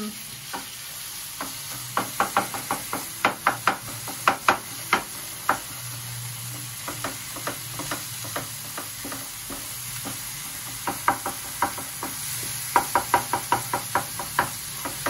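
Wooden spatula knocking and scraping against a frying pan as onions and tomatoes are stirred, in irregular runs of quick taps, over a steady faint sizzle of the frying vegetables.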